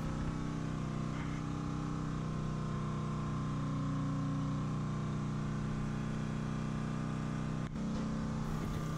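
A steady, low machine hum at one constant pitch, unchanging throughout, with a brief dropout about three-quarters of the way through.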